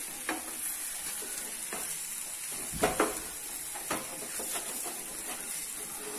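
Egg dosa sizzling on a hot pan while a flat spatula scrapes under it to lift it off, in about six short scraping strokes; the loudest two come close together about three seconds in.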